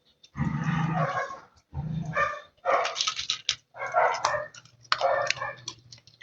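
A dog eating, making short grumbling, whiny vocal noises mixed with chewing, in irregular bursts about once a second.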